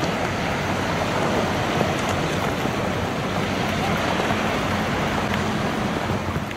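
Fast tidal current of the Kanmon Strait churning into whitecaps: a steady wash of moving water.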